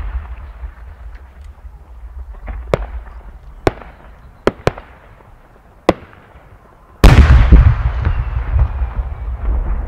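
Firework shell going up and bursting. Five sharp cracks come from the small effects on its rising tail. About seven seconds in, the main 10-inch shell bursts with a loud boom that rumbles and echoes away.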